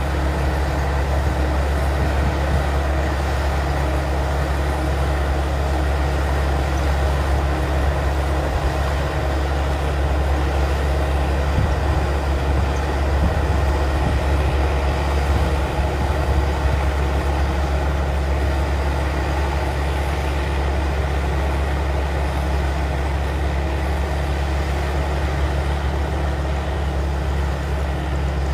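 Rice combine harvester running steadily with an even low engine drone, no change in speed.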